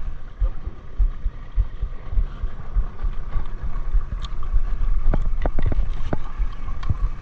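Wind rumbling on the microphone and water knocking against the hull of a small wooden fishing boat at sea, over a faint steady hum. A few short clicks and knocks come about five to six seconds in.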